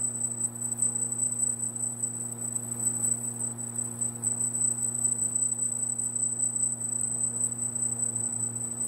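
Laser marking machine at work marking lettering into a polished metal panel: a steady high-pitched whine with faint flickering above it, over a low steady hum.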